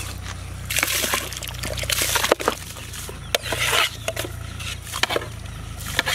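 Rice tipped from a metal bowl into a large pot of steaming water, splashing and sloshing in several bursts about a second apart, with a few sharp clicks between them.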